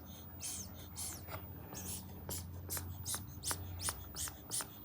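A run of short scratchy crunches or rustles, speeding up to about two or three a second, over a faint low steady hum.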